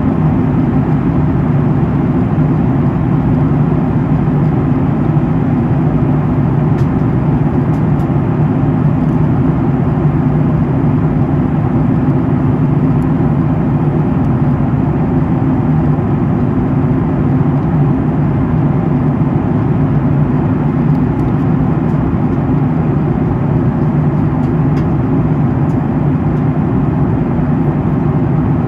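Steady jet airliner cabin noise in flight: a constant engine drone and rushing airflow, with a low hum underneath, heard from a window seat.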